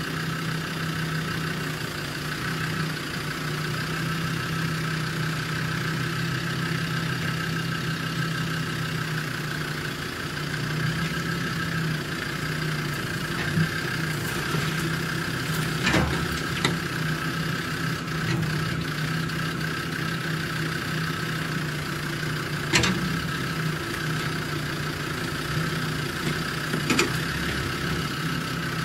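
Land Rover Defender 110's engine running steadily at low revs as the vehicle crawls slowly over rough ground, with a few sharp knocks now and then.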